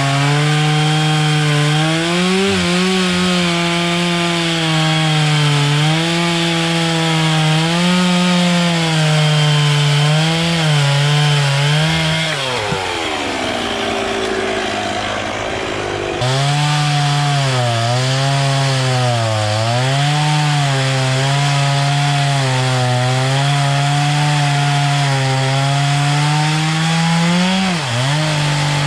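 Stihl chainsaw running at high revs while carving into a wooden log, the engine pitch rising and falling as the chain bites and frees in the cut. About halfway through the engine sags and fades, then comes back suddenly at full speed.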